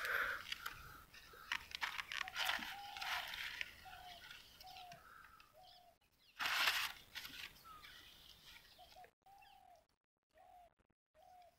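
A bird calling outdoors with a run of short, rising-and-falling notes, about two a second, repeated in two runs. Scattered rustles and clicks, with one loud brief rustling burst a little past halfway.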